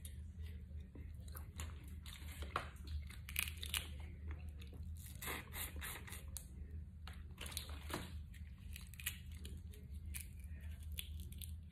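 Boiled crawfish being peeled and eaten by gloved hands: many short snaps and tearing of shells, with sucking and chewing at the mouth, over a steady low hum.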